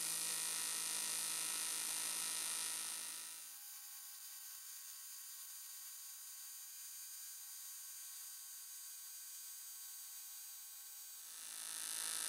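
AC TIG welding arc on aluminium from an Everlast inverter welder: a steady electric buzz for about three and a half seconds that cuts out, leaving a fainter steady hum, then starts again about a second before the end.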